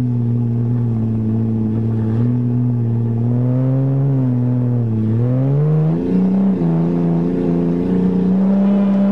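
1982 Toyota Cressida's engine pulling the car at steady revs, then revving up to a clearly higher, steady pitch about six seconds in.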